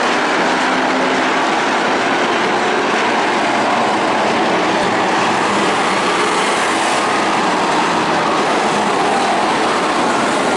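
A field of dirt-track stock cars racing at speed, many engines running together as one loud, steady sound.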